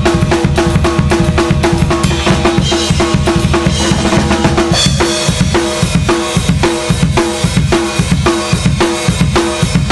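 Drum kit playing a fast punk-rock beat: rapid bass drum and a ringing 14×7-inch lacewood snare under cymbals, with a cymbal crash about five seconds in.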